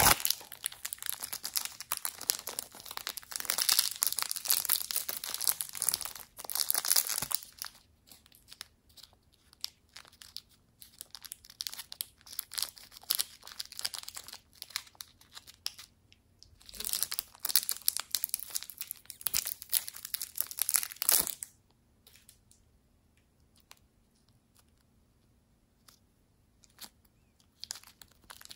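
Thin clear plastic wrappers crinkling and tearing as packets of modelling clay are unwrapped by hand. The crackling comes in two long dense spells, one at the start and one past the middle, with only scattered faint crackles between them and near the end.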